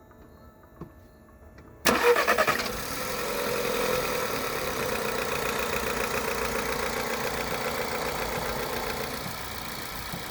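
Volkswagen-group 1.2 TSI single-overhead-cam four-cylinder engine starting about two seconds in with a brief rattle as it catches, then idling steadily. The start-up rattle is the noise the mechanic fixes by replacing the timing-chain tensioner.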